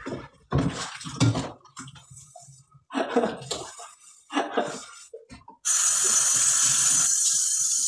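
Kitchen tap switched on about five and a half seconds in and running steadily. Before that, a few short, scattered sounds.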